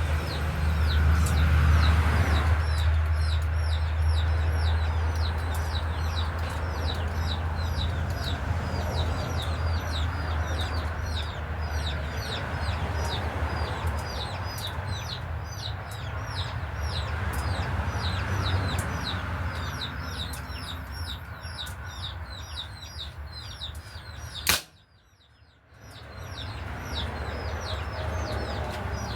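Birds chirping quickly and steadily, several short high calls a second, over a low steady rumble. Near the end comes one sharp crack, and then about a second of near silence.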